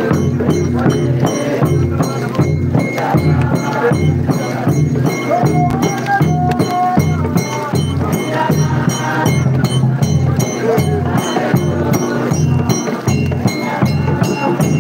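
Large hand-held frame drums beaten in a steady, even rhythm, with a group of voices singing a church hymn over them.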